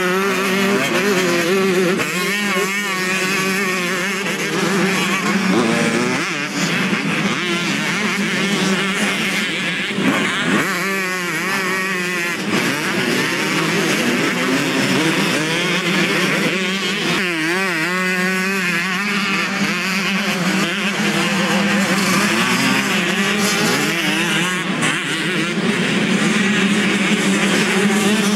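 Motocross bikes racing around a dirt track, their engines revving up and dropping back again and again, several engine notes rising and falling over one another.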